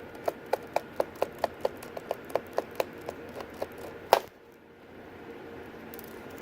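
Precision screwdriver backing out the small bottom-case screws of a unibody MacBook: a quick, even run of small clicks, about four or five a second, that weakens after about three seconds, then one louder click about four seconds in.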